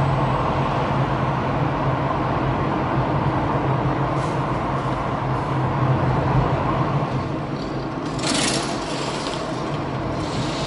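Car driving through an underpass: steady road and engine noise with a low hum, easing about seven seconds in as the car comes out into the open, with a short hiss a little after eight seconds.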